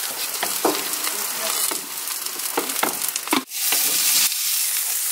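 Food sizzling on a barbecue grill: puréed roasted vegetables hitting hot oil as they are poured into a frying pan, with a few light knocks. About three and a half seconds in, a louder, steadier sizzle.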